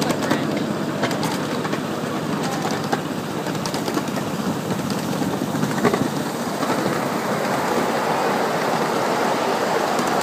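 Ride-on miniature railway cars rolling along the track, a steady rumble and rattle of small steel wheels on rail with scattered clicks. The sound grows fuller about six and a half seconds in, as the train runs onto a low wooden trestle.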